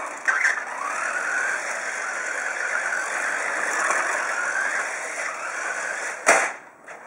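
Electric motor and gears of a radio-controlled truck on a Tamiya chassis whining as it drives, the pitch rising and falling with the throttle. A single sharp knock comes about six seconds in, and after it the sound is quieter.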